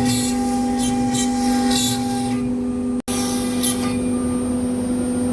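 CNC router spindle running with a steady whine, its bit cutting in short repeated passes. The sound breaks off for an instant about three seconds in.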